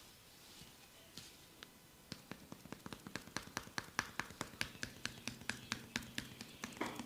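Rapid, even percussion-massage strikes on a client's body, about six sharp taps a second. A few scattered taps come first, and the steady run starts about two seconds in.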